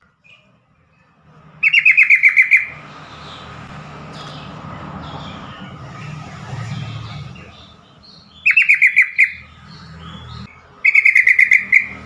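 Yellow-vented bulbul calling: three loud bursts of rapid, evenly repeated chattering notes, each about a second long, the first near the start and two close together near the end, over a low background rumble.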